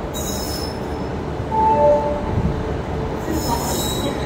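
Electric-hauled Indian Railways express train rolling in along the track: steady low rumble of wheels on rails, with brief high-pitched wheel squeals near the start and again near the end. A short two-note tone sounds about halfway.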